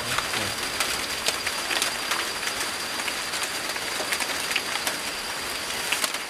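Steady rain hiss with many scattered sharp drop ticks, and a constant high-pitched thin tone over it.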